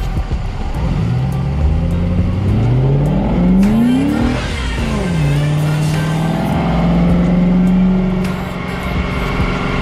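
Lexus GS400's 1UZ-FE V8 engine running with its accessory belt turning on a newly fitted tensioner, revved. The engine speed climbs steadily for about three seconds and drops back sharply, then rises again and is held for a few seconds before falling back near the end.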